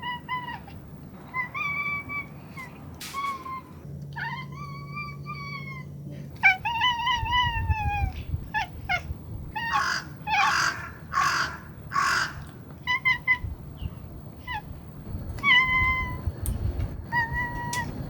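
Domestic cat meowing over and over: a string of separate meows, some short and some drawn out, with a few rougher, raspier calls around the middle.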